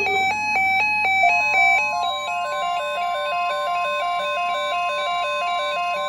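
Several NOAA weather alert radios sounding their alarms at once: overlapping electronic beep patterns stepping back and forth between pitches, joined about a second in by a steady high alert tone. The alarms announce a severe thunderstorm watch.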